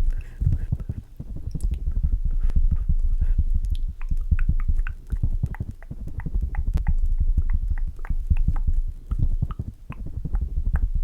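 Makeup products tapped and handled close to the microphone for ASMR: a dense run of soft low thuds mixed with many short, light clicks.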